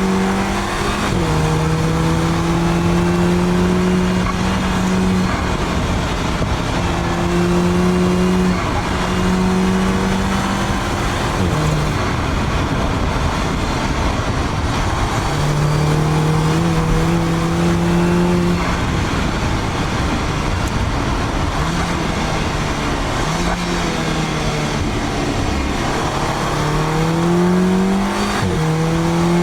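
Audi S3 8P's turbocharged 2.0 TFSI four-cylinder, fitted with an aftermarket downpipe, pulling the car along under road noise. Its engine note holds steady for seconds at a time, drops or breaks briefly now and then, and climbs in pitch twice near the end.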